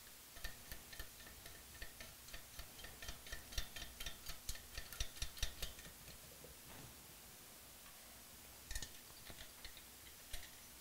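Light rapid metallic clicking and rattling of a nut and washer being spun by hand onto a cylinder-head stud, several ticks a second for about six seconds, then a few more clicks near the end.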